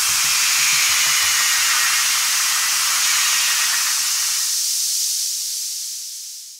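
Synthesizer white-noise wash, a loud steady hiss, ending an electronic score; the last faint beat pulses die away in the first second or so, and the hiss fades out near the end.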